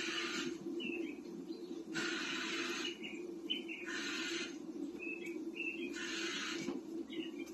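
Electronic cat toy playing bird chirps in a loop: short chirps alternating with a half-second hiss about every two seconds, over a steady motor hum.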